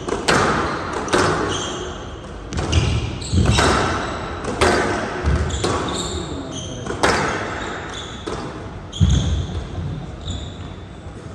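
Squash rally: the hard rubber ball cracking off rackets and the walls about once a second, echoing in a large hall, with a few heavier thuds. Short high squeaks from court shoes on the floor come between the shots.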